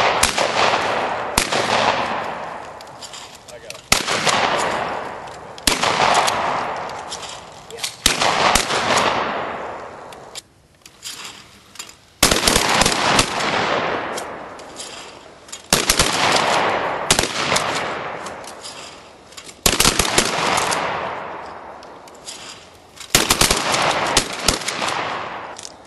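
About a dozen shotgun shots fired at clay targets, coming every one to four seconds and often two in quick succession. Each report echoes and fades away over a second or two.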